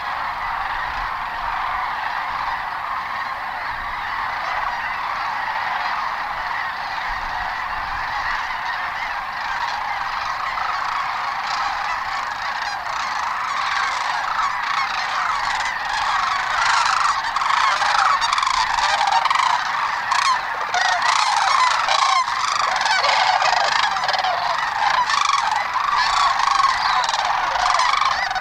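Large flocks of birds calling as they fly in, a dense chorus of many overlapping calls that grows louder over the second half.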